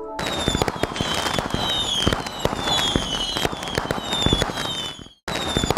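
Dense crackling with a short falling whistle repeating about twice a second, like fireworks. It cuts out abruptly near the end and starts again at once, as a looped sound effect does.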